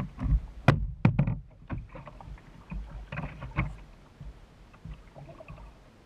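Several sharp knocks and thumps on a plastic fishing kayak as its deck hatch lid is lifted and swung open, the loudest about a second in, over a low steady rumble; the knocks thin out in the last couple of seconds.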